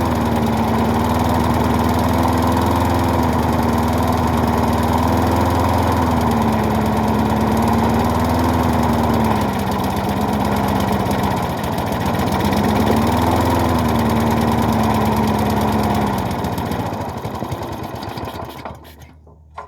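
Small lawnmower engine running, its speed rising and falling unevenly several times, then slowing and stopping near the end. The surging is a sign of a faulty carburetor, which the owner says needs a rebuild kit.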